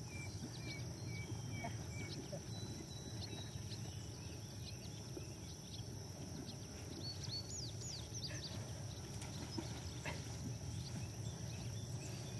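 Outdoor pond ambience: birds chirping and whistling in short calls, over a steady high insect drone and a low steady rumble.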